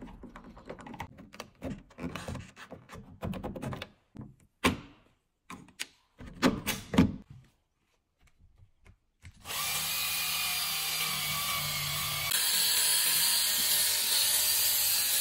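Short clicks and knocks of a screwdriver working the door handle fittings on a VW Caravelle door, with gaps between them. From about nine seconds in, a drill spins a small polishing pad in the handle recess: a steady whir with a motor whine.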